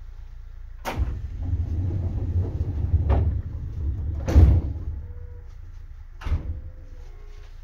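Sliding doors of a Seibu 2000 series train working, heard from inside the car: a sharp knock about a second in, then a low rumble with more knocks, the loudest about four and a half seconds in, and one more knock near the end.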